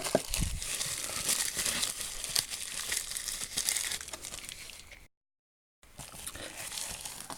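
Crinkling and rustling of wrapping or packaging being handled. The sound cuts out completely for under a second about five seconds in.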